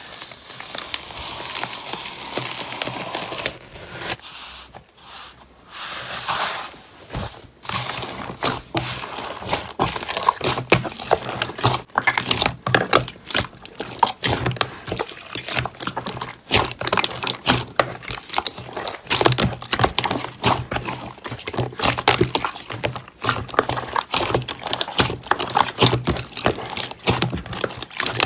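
Slime being squeezed and worked by hand: a dense, irregular run of wet crackles and pops.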